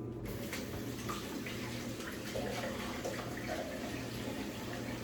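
A steady, wet, watery swishing noise with a few faint clicks in it.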